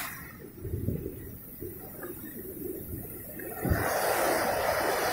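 Ocean surf breaking and washing up the shore, with wind buffeting the microphone. The rush of water swells louder about three and a half seconds in and stays up.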